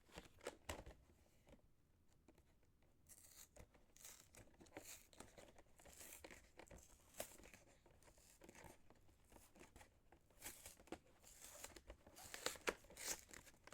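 Faint tearing and crinkling of a Pokémon card product's wrapping as it is torn open by hand, in scattered short crackles that grow busier and louder near the end.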